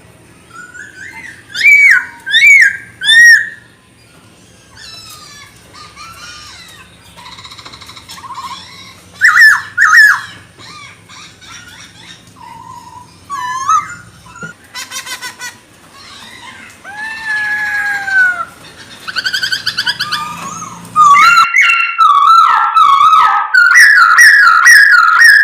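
Poksay Hongkong (a laughingthrush) singing loud, varied whistled phrases and slurred notes with short pauses between them. It breaks into a faster, near-continuous run of notes in the last few seconds.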